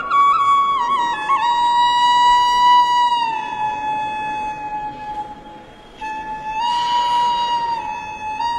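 A bone quena (notched-end flute) playing a slow melody of long held notes that step downward in pitch, with quick ornamental flicks in the first second or so. About five seconds in the tone fades to breathy air, then the melody picks up again with audible breath noise.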